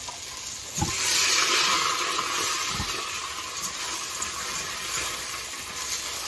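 Tomato sauce sizzling as it hits hot oil-browned rice in an Instant Pot's inner pot: a loud hiss flares up about a second in and slowly eases off, with a couple of dull knocks.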